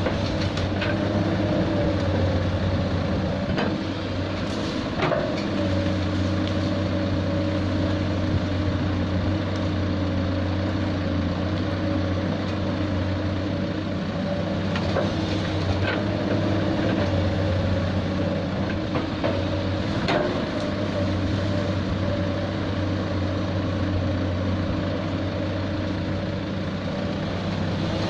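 Heavy diesel engine of a hydraulic excavator running steadily as it works, with a few short clanks about 4, 5, 15 and 20 seconds in.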